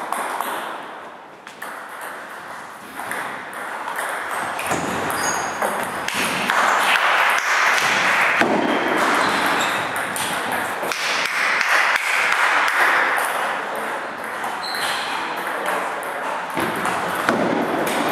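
Table tennis ball clicking back and forth between paddles and table during a rally in a large sports hall, over a steady rushing background noise that swells in the middle.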